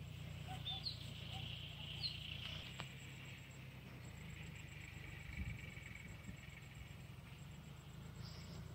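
Countryside ambience: a few short bird chirps in the first couple of seconds over a faint, steady high buzz and a low rumble.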